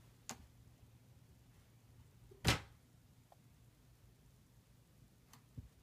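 Puppies playing around plastic pet carriers: a few light clicks and one short, sharp knock about two and a half seconds in, with a soft thump near the end.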